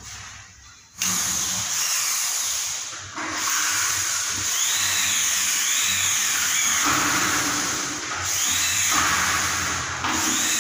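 Power drill running in long stretches with short pauses, starting suddenly about a second in, as aluminium cabinet work is done.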